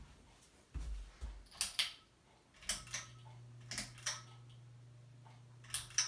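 Pull-chain speed switch of a Hampton Bay Landmark III Plus ceiling fan clicking several times, in pairs, as the chain is pulled and let go. About three seconds in, the fan motor starts with a steady low electrical buzz that carries on.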